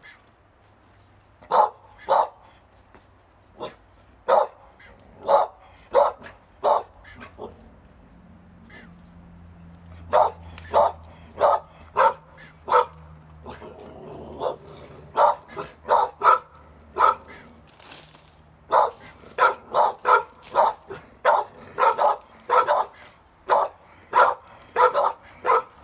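Young pit bulls barking repeatedly, first in scattered single and paired barks, then faster and almost without pause in the second half.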